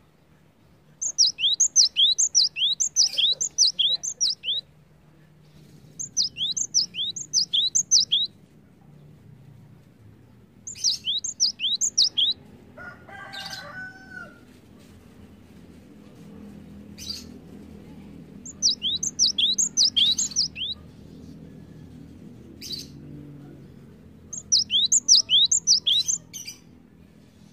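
A cinereous tit (gelatik batu) singing in five phrases of rapid, high, sharply descending whistled notes, about seven a second, each phrase lasting one to three seconds and separated by pauses. About halfway through there is a brief lower call.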